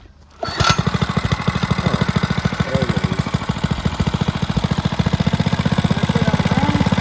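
Small 105cc single-cylinder mini bike engine catching about half a second in and then running steadily with a fast, even firing beat. This is its first start after sitting unused since last summer.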